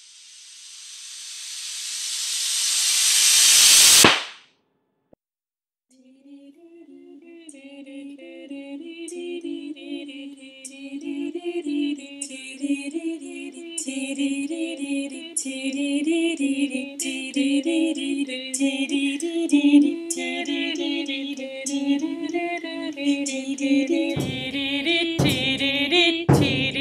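Experimental soundtrack music: a hissing noise swell grows louder for about four seconds and cuts off abruptly. After a short silence, a wavering, voice-like hummed tone sets in with a regular high ticking over it, and a few low thumps come near the end.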